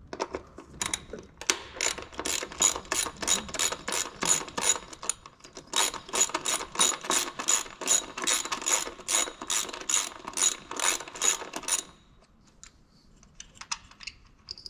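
Hand ratchet with a 10 mm socket clicking in quick back-and-forth strokes, about three clicks a second, as it backs out the bolt holding an ignition coil pack. The clicking stops about twelve seconds in, leaving only a few faint clicks.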